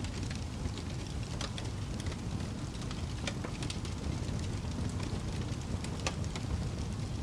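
Fire crackling: scattered sharp pops and snaps over a steady low rumble of the flames, with a few louder snaps.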